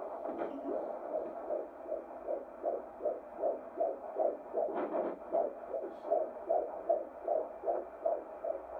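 Fetal heartbeat played through an ultrasound machine's speaker at about 155 beats per minute, a normal rate for a fetus: a fast, even pulsing of about two and a half beats a second.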